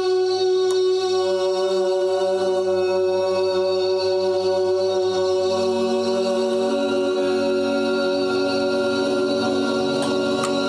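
Looped samples of a man's sung voice, played as held chords by raising channel faders on an Allen & Heath Qu-24 mixing board, giving a steady choir-like drone. New notes join about a second in and again around five and eight seconds, changing the chord. A few clicks near the end.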